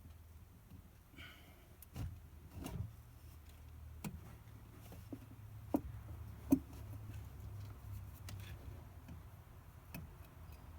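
Scattered light knocks and clicks of parts and tools being handled, with two sharper knocks around the middle, over a faint steady low hum.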